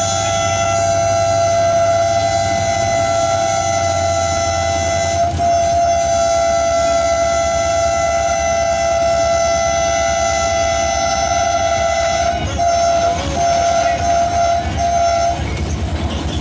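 Diesel locomotive's air horn sounding one long, steady blast, then several short toots about 12 to 15 seconds in, a warning while approaching a level crossing. A low engine rumble runs under it.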